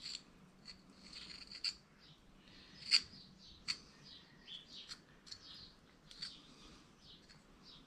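Faint chirping of small birds, with a few light clicks from metal parts being handled, the sharpest about three seconds in.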